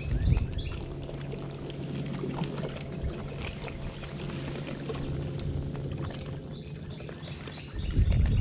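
A small motor on a fishing boat humming steadily at a low pitch, with a low thump right at the start and another longer one near the end.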